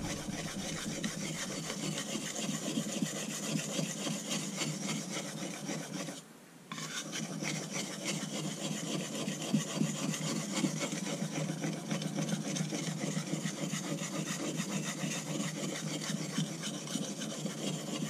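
Steel cleaver blade scrubbed back and forth under heavy pressure on an oiled soft Arkansas whetstone, a steady gritty scraping with a short pause about six seconds in. The steel is being used to wear down and glaze the stone's surface, loading it with black steel swarf.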